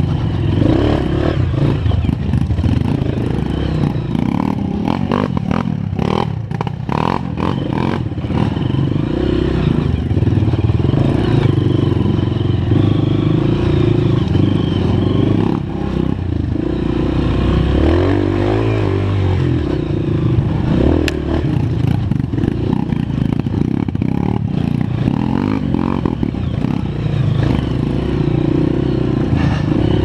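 Honda CRF230 trail bike's single-cylinder four-stroke engine running under load on a rough dirt trail, its revs rising and falling as the throttle is worked, with knocks and rattles from the bike over the ruts about six to eight seconds in.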